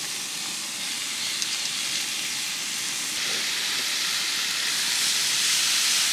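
Marinated spicy pork bulgogi sizzling on a hot camp grill, a steady hiss that grows louder about three seconds in.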